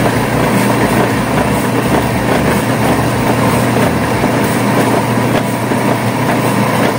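Electric pressure washer running: the electric motor drives the plunger pump through a V-belt with a steady hum.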